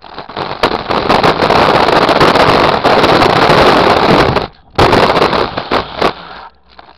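Small hard scooter wheels rolling over rough concrete pavement, a loud continuous rattle full of sharp clacks. It cuts out briefly about two-thirds of the way through, runs on again, then dies away near the end.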